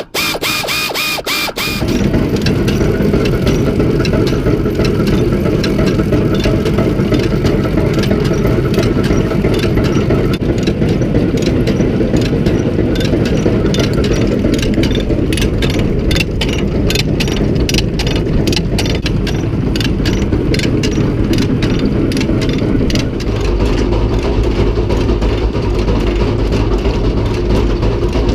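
An engine or motor starts about two seconds in and runs steadily, with a fast ticking over its hum, and its low tone shifts near the end.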